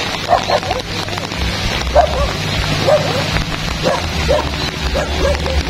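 A dog barking repeatedly in short single barks, roughly every half second to a second, over the steady hiss of heavy rain.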